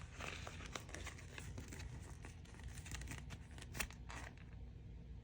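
Faint rustling and crinkling of a paper sticker sheet as a small sticker is peeled off and pressed down, with a few light clicks and one sharper tick a little before four seconds in.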